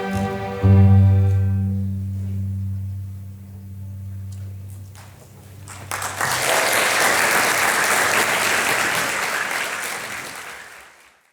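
A piece of music ends on a held low note that dies away, then an audience applauds from about six seconds in and the applause fades out.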